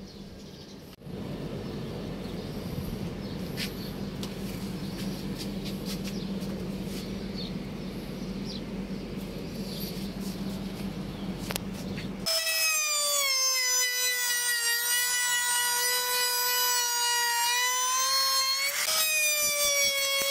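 A steady low hum with noise for the first part, then a handheld trim router starts abruptly with a loud, high, steady whine. Its pitch sags a little as the bit cuts a groove into the wooden block, and rises again briefly near the end.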